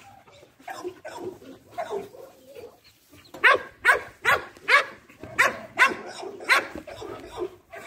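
Dog barking: quieter, scattered barks at first, then a run of loud barks about two a second from about three and a half seconds in.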